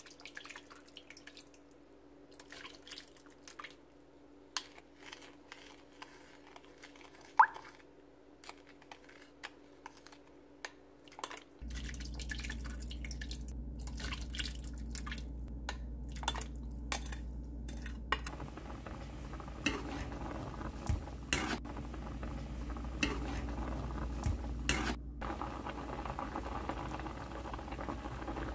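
Drips and light clicks of liquid and ingredients against a cooking pot. About a third of the way in, a steady low hum sets in under more drips and clinks as soy-based sauce goes in over chicken pieces, and the pot starts to bubble near the end.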